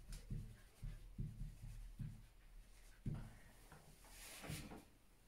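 Whiteboard marker writing on a whiteboard: faint, quick strokes and soft knocks of the pen against the board, a few a second, then a single louder knock about three seconds in.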